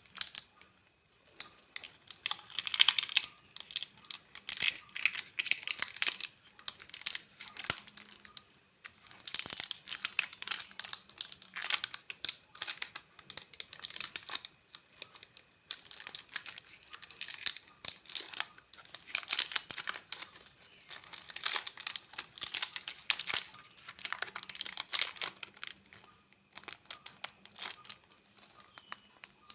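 Snack packaging being crinkled and torn open by hand, in bursts of crackling with short pauses between, dying away near the end.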